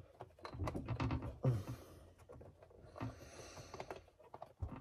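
Hands working a rubber dust sleeve onto the back of a car headlight housing: scattered small clicks and knocks of rubber and plastic, with a short hissing rub about three seconds in.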